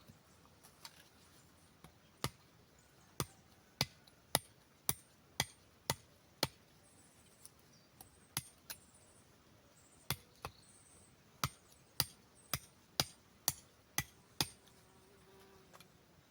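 A blade chopping small notches into the ends of split wooden sticks: a run of sharp knocks about two a second, thinning out for a few seconds midway, then a second steady run.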